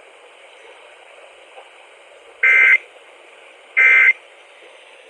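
Emergency Alert System end-of-message data bursts: two short, raspy two-tone digital buzzes about a second and a half apart, a third just starting at the end, over steady radio hiss. They signal that the warning message has ended.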